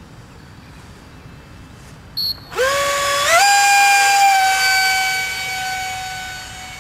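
Electric motor of a radio-controlled Phase 3 F-16 model jet spooling up to full throttle for a hand launch: a whine that starts about two and a half seconds in, rises in two steps to a steady high pitch, then fades and sinks slightly as the plane flies away. A short high beep comes just before it.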